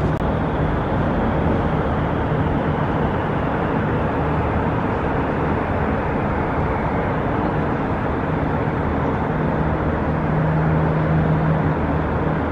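Steady road traffic noise: a constant low rumble with a faint engine hum that swells briefly near the end.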